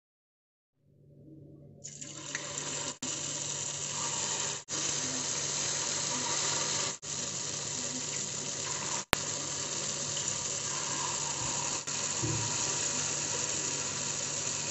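Spoonfuls of tofu filling deep-frying in a pan of hot oil: a steady, hissing sizzle that builds during the first two seconds and breaks off briefly several times, with a low steady hum underneath.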